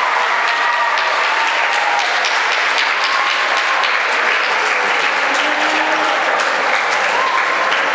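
Audience applauding steadily, with a few voices heard among the clapping.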